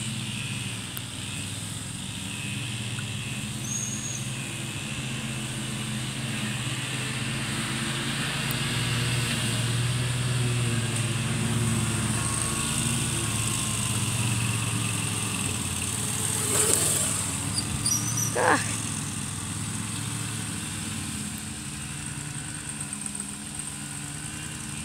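Small gasoline engine running at a distance, its hum swelling through the middle and easing off again. A couple of brief rustles about two-thirds of the way through.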